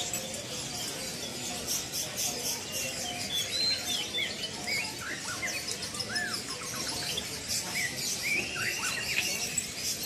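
Caged small songbirds chirping: many short, scattered high calls, some bending up and down in pitch, over a steady hiss of more bird chatter.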